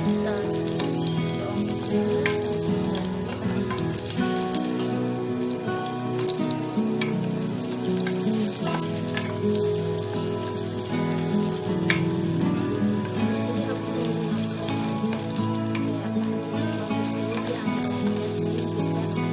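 Oil sizzling steadily as sliced shallots and garlic fry in a pan, with scattered clicks of a spatula stirring them.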